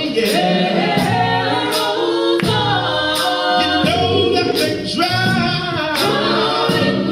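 Gospel choir singing live in several voices, with a sharp percussive beat recurring about every two-thirds of a second.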